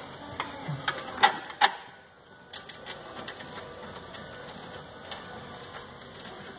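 Metal clicks and taps of a through-bolt being handled and started by hand into an engine mount bracket. Two sharper clicks come a little over a second in, followed by faint ticking and scraping.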